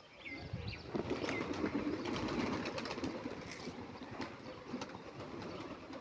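Feral pigeons cooing in a low, continuous rolling chorus, with a couple of short high bird chirps in the first second and a half.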